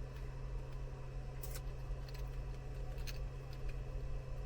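A few light clicks and ticks of a wired programming cable and its leads being handled, over a steady low electrical hum.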